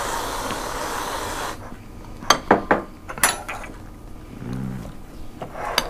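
Aerosol whipped-cream can spraying with a steady hiss for about a second and a half, then a few sharp clinks of forks and spoons against plates and bowls.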